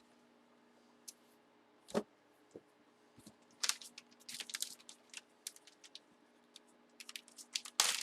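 Handling sounds: a couple of light knocks in the first two seconds, then from about three and a half seconds in a run of crinkling and rustling of plastic packaging.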